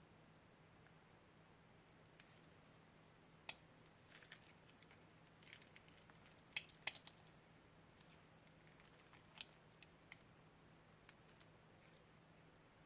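Crunchy slime being squished and pressed, giving faint scattered crackles and pops, with a short burst of dense crackling about seven seconds in.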